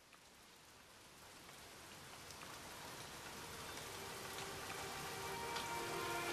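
A rain-like hiss with scattered crackles slowly fading in as the opening of a music track. Faint held notes begin to come in near the end.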